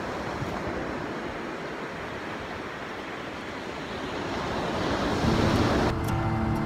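Ocean surf washing onto the beach, swelling louder as a wave rushes in near the end, with wind buffeting the microphone.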